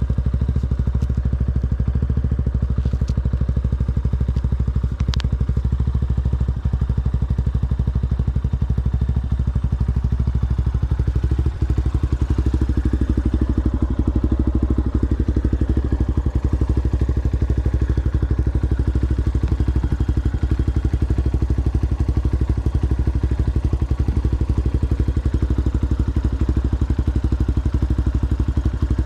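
Yamaha Ténéré motorcycle with an aftermarket Coyote exhaust, running under way off road. Its engine note drops around ten seconds in, then pulls again with a fuller, rougher sound.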